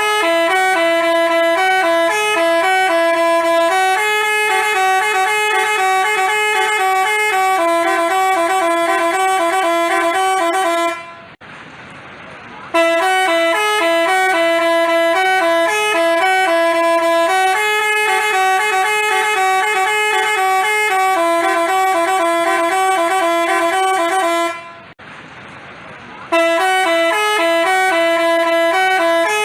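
Basuri telolet multi-tone bus horn playing its tune, a stepped melody of clear pitched notes. The same tune runs through about three times, stopping briefly twice between repeats.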